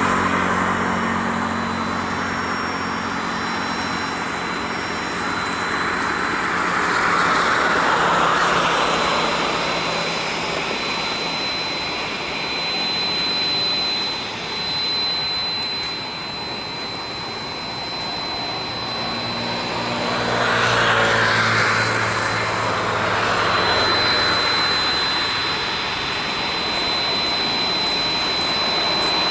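Jet airliner engines running as an aircraft passes low on approach. A steady roar with a thin high whine swells twice, about a quarter of the way in and again about two-thirds of the way in.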